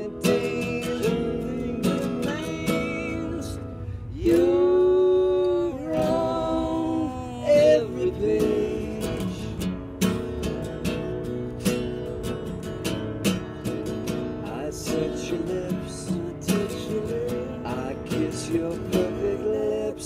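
Acoustic guitar strummed steadily while a man sings along, holding two long notes near the middle.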